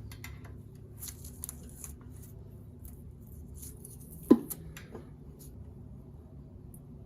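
Scattered light clicks and clinks of tools and small parts being handled, with one sharp knock about four seconds in, over a steady low hum.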